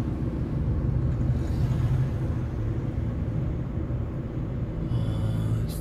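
Steady low rumble of a car's engine and road noise heard from inside the cabin, with a short hiss near the end.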